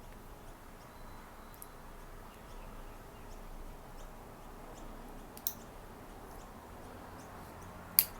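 Kobalt 15-in-1 multi-tool being handled, its folding implements giving faint clicks, with a sharp click about halfway through and a louder one near the end.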